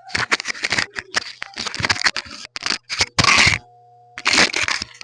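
Refrigerator compressor's thermal overload protector crackling and snapping irregularly as it trips, over a faint low electrical hum, with louder bursts about three and four seconds in. It is the sign of a seized compressor: the locked compressor draws too much current, and the protector's bimetal strip heats and cuts out.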